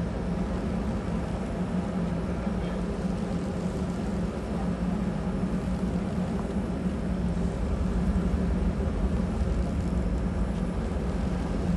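Motor yacht's diesel engines running at low power while manoeuvring astern into a berth: a steady low drone and rumble that grows a little louder in the second half.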